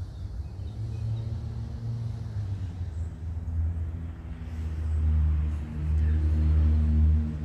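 A motor vehicle's engine running nearby: a low, steady hum that grows louder over the last few seconds, then eases just before the end.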